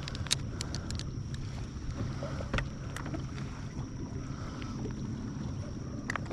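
Steady low rumble of a fishing boat on calm water, with a thin steady high whine and a few sharp clicks, several of them in the first second.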